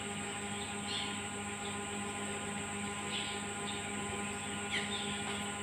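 A steady mechanical hum with a few short, high, falling chirps over it.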